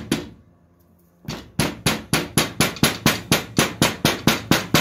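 A hammer lightly tapping a wheel-bearing seal into a steel steering knuckle, just enough to line it up and start it in the bore: one tap, a pause of about a second, then a steady run of about four quick taps a second.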